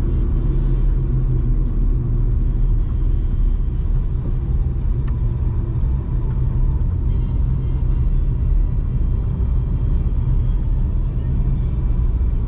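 Small car driving at steady speed: a continuous low rumble of engine and road noise.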